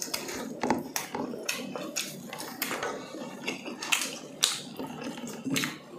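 Close-up eating sounds of people eating grilled chicken and rice: chewing, wet mouth smacks and many small irregular clicks, with light clinks of a utensil on a plate.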